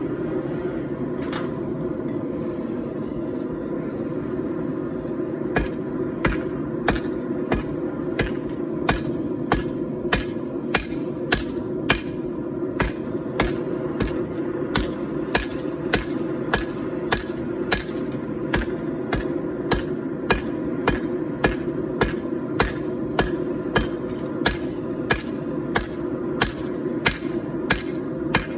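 Hand hammer striking hot 4140 steel on an anvil, starting about five seconds in and going on at about two blows a second, each blow with a short ring. A steady low rumble runs underneath.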